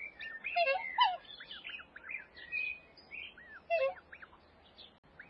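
Birds chirping: many short, quick chirps and whistles, with a few lower, falling calls now and then.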